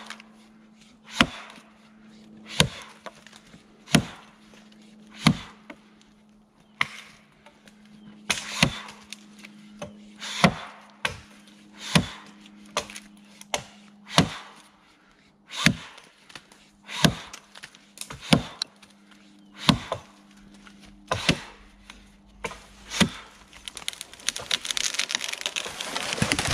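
Axe blows chopping into the trunk of a small standing tree, one sharp strike about every second and a half. Near the end comes a long crackling, rustling rush as the cut tree falls through the surrounding branches.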